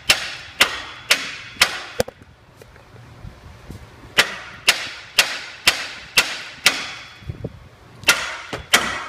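Hammer blows on the aluminum steering knuckle and lower control arm, struck hard to break a seized lower ball joint free. About a dozen strikes come in three runs of roughly two a second, each with a short metallic ring.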